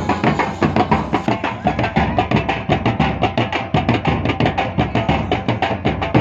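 Rajasthani folk dance music with fast, even drum beats under a melody.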